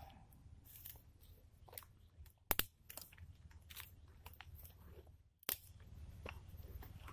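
Small campfire of thin dry sticks crackling: irregular sharp pops and snaps, the loudest a quick pair about two and a half seconds in.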